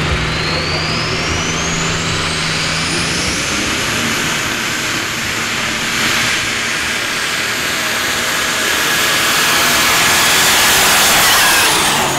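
Ford 6600 pulling tractor's 6.6-litre Ford engine running hard through a pull. A high whine climbs steeply in pitch over the first few seconds and then holds. The engine gets louder towards the end and drops off just before it finishes.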